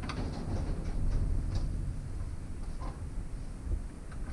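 Hand wrench working the rod-eye bolt on a hydraulic cylinder held in a vise: scattered sharp metal clicks and clinks over a steady low rumble.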